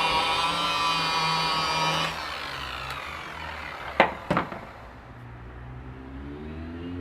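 Electric machine polisher running steadily with a whine while buffing cutting polish over a paint-filled scratch on a car panel, then winding down about two seconds in. Two sharp knocks follow about four seconds in.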